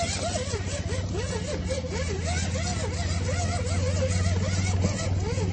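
Electric motor and gearbox of an MN86KS 6x6 RC crawler running under power, giving a steady low hum with a dense gear and tyre rattle and a wavering tone over it.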